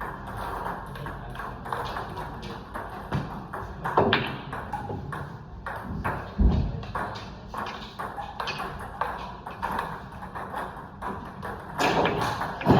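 Pool balls clicking sharply against each other a few times, with a low thud about six and a half seconds in, over a murmur of background voices.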